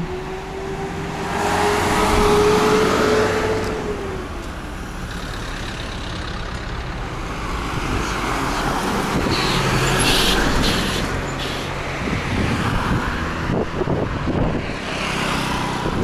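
Cars driving past close by in street traffic. One passes in the opening seconds, its engine note falling away about four seconds in, and another swells past around ten seconds in.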